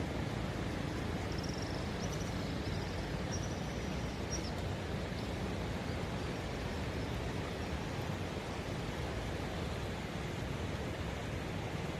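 Steady rush of high floodwater pouring through the fully opened gates of a river weir, an even noise heavy in the low end. A few faint high chirps come in the first few seconds.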